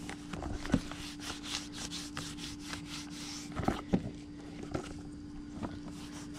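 Hands rubbing and handling a leather knife sheath: quick scratchy rubbing strokes with a few soft knocks, over a steady low hum.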